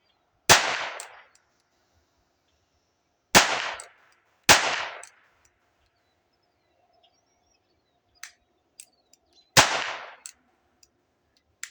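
Four shots from a .22 Ruger SP101 revolver, each with a short echoing tail: one about half a second in, two close together about three seconds later, and a last one near the end. A few faint clicks fall between the shots.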